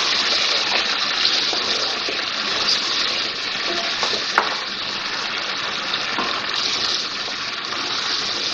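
Mutton pieces with ginger-garlic paste sizzling steadily in hot oil while being stirred with a wooden spatula in a non-stick pot: the meat being sautéed (bhunai). A single sharp click about four and a half seconds in.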